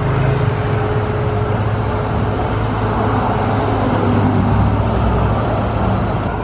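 Steady street traffic noise, a continuous low engine hum with no single vehicle standing out.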